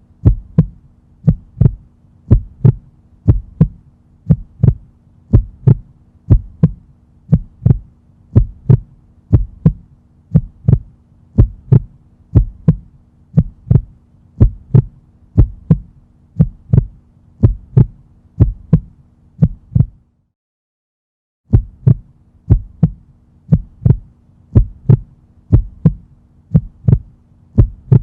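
Heartbeat sound effect: a steady rhythm of deep lub-dub double thumps over a faint hum. The beats break off for about a second and a half a little past two-thirds of the way through, then start again.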